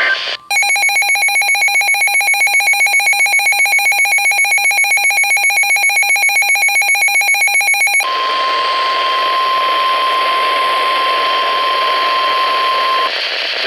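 A weather radio's built-in alert alarm sounds as a shrill, rapidly pulsing beep for about seven and a half seconds. It then switches to radio hiss carrying the NOAA Weather Radio's steady single-pitch warning alarm tone for about five seconds, which stops just before the broadcast voice begins.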